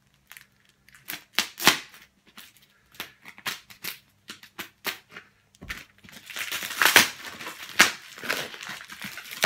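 A parcel's tape-and-plastic wrapping being slit with a knife: scattered sharp crackles and pops. About six seconds in, the wrapping is pulled and torn open with a denser crinkling and tearing, loudest about a second later.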